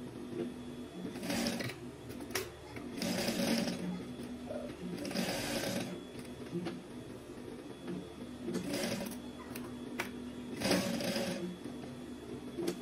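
Sewing machine stitching in five short runs, each about a second or less, with a steady hum between the runs and a few light clicks.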